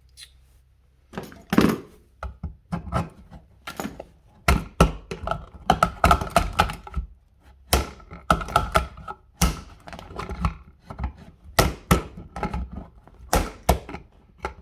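Irregular series of knocks, taps and clicks from hand tools working at a nailed-in electrical box, some strikes ringing briefly.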